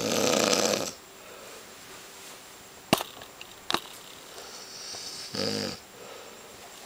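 A sleeping person snoring: a loud, rattling snore about a second long at the start, then a breathy inhale and a shorter, quieter snore about five seconds in. Two sharp clicks fall between the snores.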